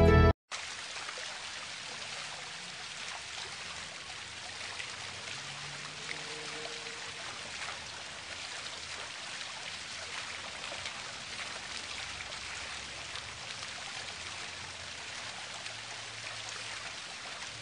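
Steady hiss of running and splashing water, as from the sprays and fountains of a water park.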